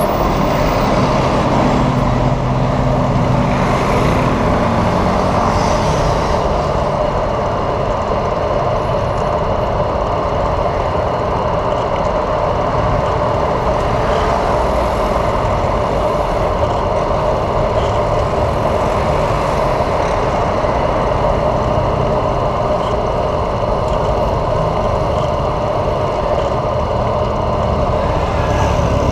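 Steady city road-traffic noise of cars, motorbikes and buses heard from a rider moving alongside the traffic, with an engine's low hum close by in the first few seconds and again near the end.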